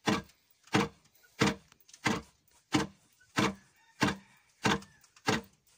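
Wooden foot-operated rice pounder (khok mong) working at a steady pace: its pestle beam thuds down nine times, about every two-thirds of a second, pounding rice in the mortar.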